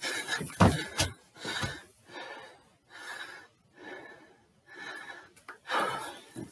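A man breathing hard in heavy gasps, about one breath a second, out of breath from exercise. A couple of footfall thumps on the stairs come near the start and about a second in.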